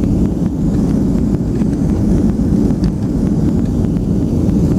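Jet airliner heard from inside the cabin during its takeoff roll: a steady, loud low rumble of the engines at takeoff power and the wheels on the runway.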